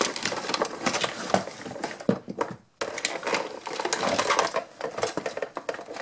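Cardboard toy box and its plastic packaging rustling and clicking as a Zurg action figure is worked free by hand: a quick run of small clicks and scrapes, with a brief pause about two and a half seconds in.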